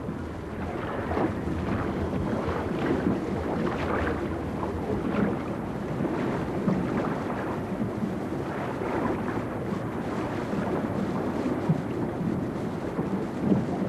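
Steady wind noise on the microphone and sea water washing around a small open boat.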